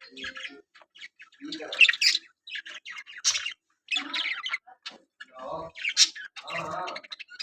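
Budgerigars chirping and squawking in short, sharp calls, one after another, loudest about two seconds in and again about six seconds in.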